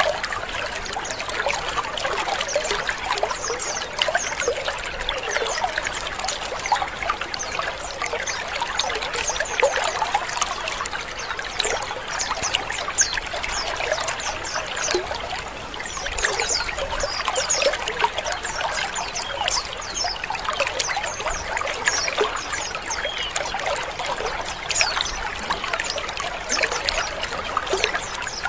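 A colony of white-eyes (pleci) chattering together. Many short, high chirps and twitters overlap without a break.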